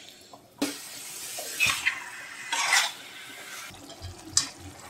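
A spatula stirs and scrapes mushroom and pea masala in a metal kadai, over a steady hiss of cooking. There is a sharp clink about half a second in and another near the end.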